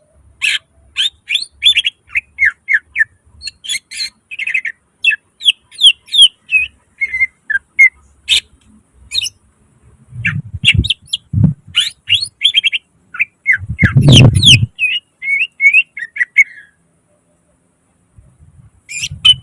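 Green leafbird (cucak ijo) singing in rapid runs of sharp chirps and short trills, with mimicked phrases of other birds woven into the song. Two loud low rumbling thuds break in, one about ten seconds in and a heavier one about fourteen seconds in, and the song stops briefly near the end.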